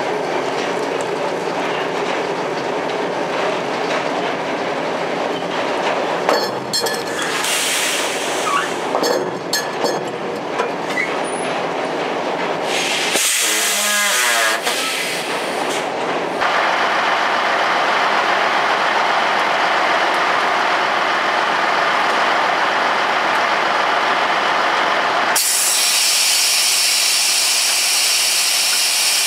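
Wood-chip trailer being unloaded on a mill's truck dumper: heavy machinery running steadily, with clanks and squeals in the first half. A loud, even hiss takes over for the last few seconds.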